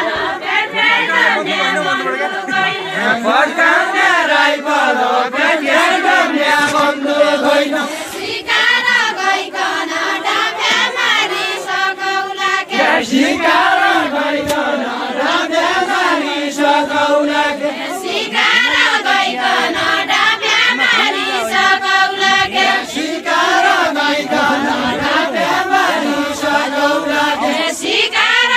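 A group of men and women singing deuda, the far-western Nepali folk song of the linked-arm line dance. The melody goes in repeating phrases with short breaks between them.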